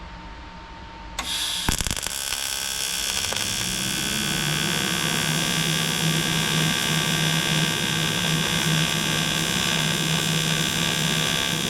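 AC TIG welding arc on aluminum from an Everlast 210EXT welder set to 75 Hz AC frequency and 25 balance. The arc strikes about a second in and then buzzes steadily. The welder judges the arc unstable and not forming a puddle, a sign that the settings are not right.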